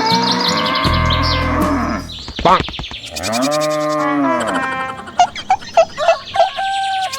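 A cow mooing: one long moo that rises and falls in pitch, followed near the end by a run of short, higher-pitched calls.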